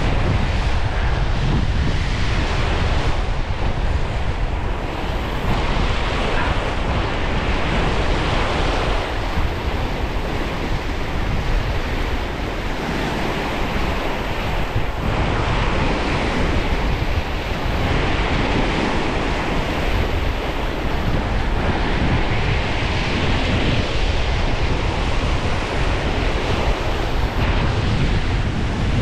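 Strong wind blowing over the microphone: a steady low rumble with hissing gusts that swell and fade every few seconds.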